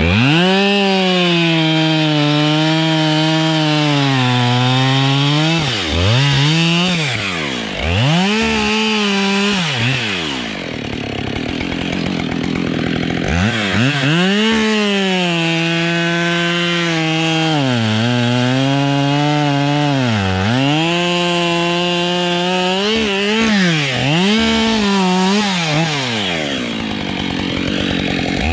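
Two-stroke chainsaw cutting spruce at high revs, its pitch sagging under load and dropping sharply several times as the throttle is eased off and opened again.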